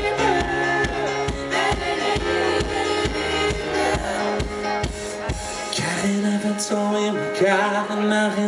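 Live pop band playing a song's instrumental intro, with a steady kick-drum beat that drops out about six seconds in, leaving held notes.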